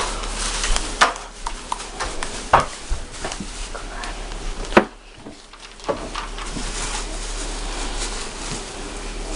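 Kitchen items being handled and put away: several sharp knocks and small clatters of things set down, followed from about six seconds in by a steady hiss.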